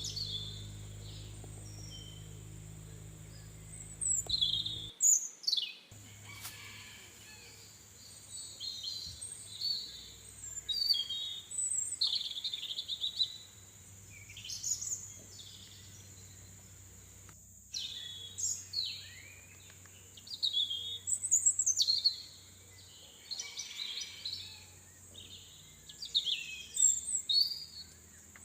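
Birds singing, short chirping phrases every second or two, over a steady high-pitched hiss. A low hum under them stops suddenly about five seconds in.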